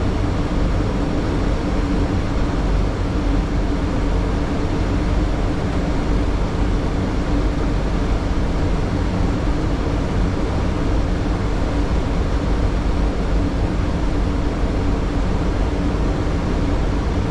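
Steady rumble and hiss of a Boeing 737 flight deck on final approach, with a faint steady hum underneath.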